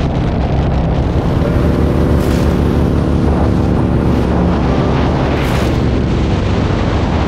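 Touring motorcycles cruising at highway speed: a steady low engine rumble with wind buffeting the microphone.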